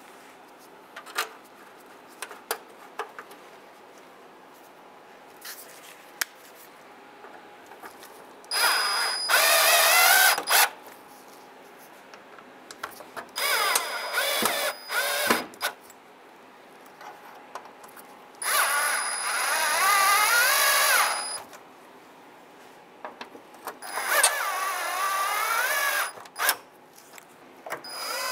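Cordless drill driving the grille's mounting screws home in several short runs of one to three seconds, a few seconds apart, its motor whine wavering in pitch as each screw tightens. Light clicks of handling come before the first run.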